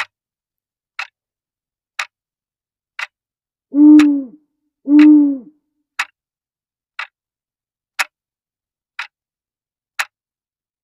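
A clock ticking steadily, one tick a second, with an owl hooting twice in a row about four seconds in; the hoots are the loudest sounds.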